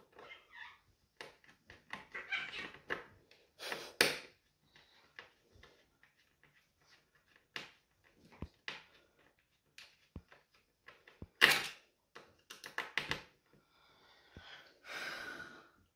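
Irregular clicks and knocks of hands handling a flat-screen TV's sheet-metal back frame and its cables, with short rustles. The sharpest knocks come about four and eleven seconds in, and a longer rustle comes near the end.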